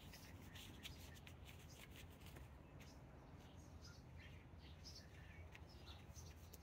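Near silence: faint rustling as a cloth gardening glove is handled and pulled on, with a few faint short high chirps or scrapes scattered through.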